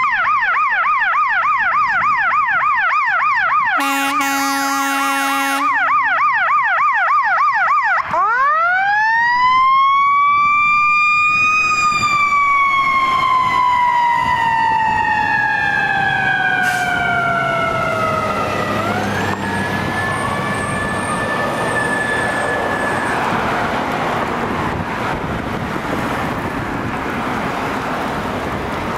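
Electronic siren of a fire-department rescue ambulance running code 3. It sounds a fast yelp, then a horn blast of under two seconds about four seconds in. After that comes a slow wail that rises and then falls for several seconds as the ambulance passes and pulls away. Road and engine noise fills the last third as the wail fades.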